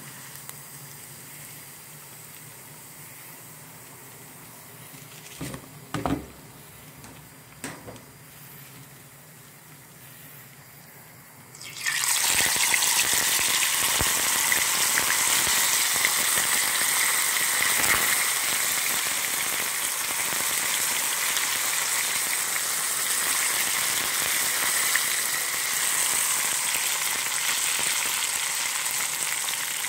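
Cassava pieces deep-frying in hot oil in an aluminium pot. A low hiss with a few short knocks comes first. About twelve seconds in, a loud sizzle starts suddenly, as a fresh batch goes into the hot oil, and it runs on as steady, vigorous frying.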